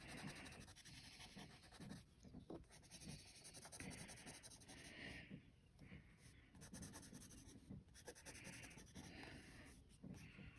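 A wooden pencil shading on sketchbook paper: faint, scratchy strokes that come in short spells with pauses between them.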